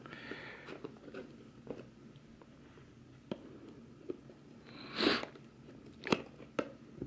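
A small product box being opened and handled by hand: soft rustling and scraping with scattered light clicks and taps, and one louder crinkling swish about five seconds in.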